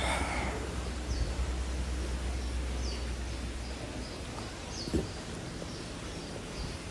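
Small birds chirping: short, high, falling chirps every second or so. Under them runs a low steady hum that stops about four seconds in, and there is a single thump about five seconds in.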